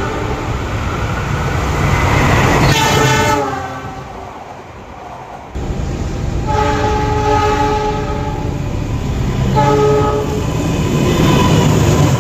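Indonesian train locomotive air horn sounding the Semboyan 35 warning signal, a multi-note chord over the rumble of the running train. The first chord slides down in pitch about three seconds in; after a sudden cut, another horn gives a long blast and then a shorter one a second or so later.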